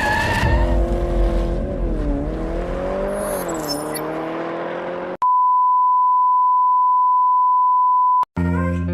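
A noisy sound with slowly wavering tones for about five seconds. Then a pure, steady high beep at one pitch is held for about three seconds and cuts off abruptly. Strummed guitar music starts near the end.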